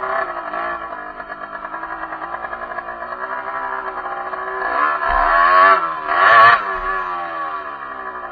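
Derbi enduro motorcycle engine idling, blipped twice about five and six and a half seconds in, then settling back to idle.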